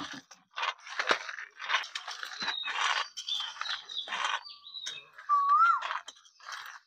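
Roasted peanuts rubbed and crushed by hand against a steel plate to loosen their skins: irregular crunching and rustling strokes. A bird calls about five seconds in.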